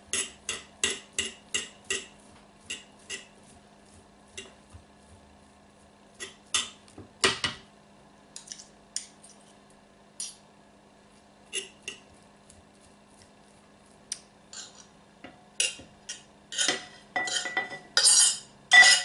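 Metal forks clicking and scraping on a cutting board as roasted chicken breast is pulled apart and shredded, in quick runs of sharp clicks with pauses between. Near the end come louder, longer scrapes and clinks as the shredded chicken is pushed off into a glass bowl.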